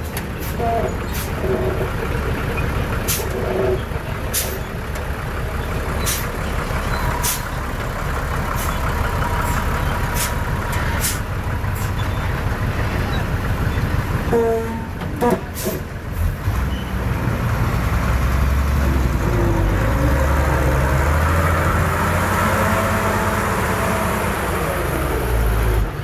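Heavy diesel earthmoving machinery running, with sharp metallic clanks scattered through. The engine gets louder about two-thirds of the way in.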